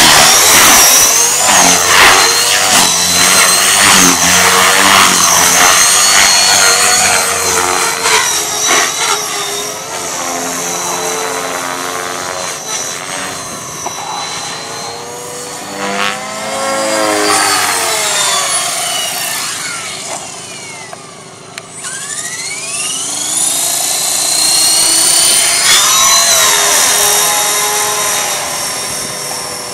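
Blade 450X electric RC helicopter in aerobatic flight: its brushless motor and rotor blades whine and whoosh, the pitch gliding up and down as it swoops and passes. Loudest at first while it is low, fading about two-thirds through as it climbs away, then swelling again.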